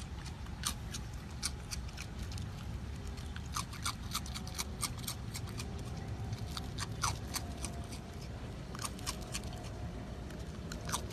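A raccoon chewing crunchy ring cereal: a run of sharp, irregular crackles and clicks over a low steady rumble.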